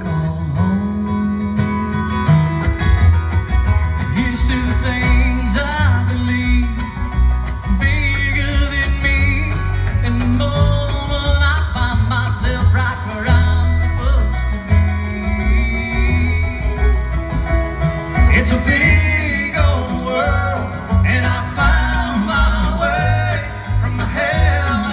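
Bluegrass band playing live, with banjo, upright bass, mandolin and acoustic guitar over a steady bass line.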